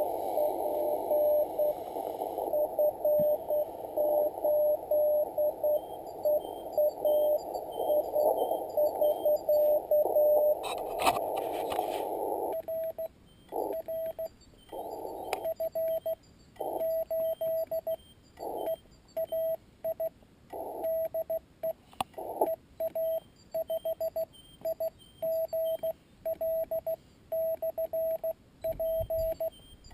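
Morse code on a Yaesu FT-817ND shortwave transceiver. First a CW signal beeps through the narrow-filtered band hiss of the receiver. From about 12 seconds in the hiss cuts out and clean sidetone beeps of the operator's own keying follow, dots and dashes with silence between.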